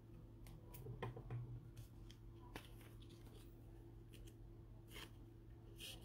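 Faint, scattered rustles and light ticks of trading cards being handled and shuffled in gloved hands, over a steady low electrical hum.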